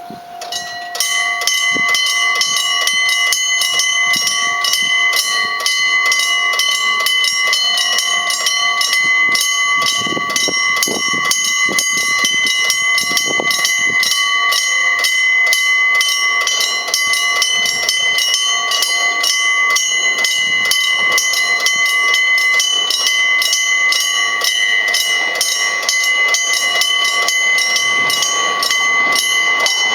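Electric bell of a Japanese railway level crossing ringing with rapid, evenly spaced strikes, starting about a second in: the crossing's warning that a train is approaching.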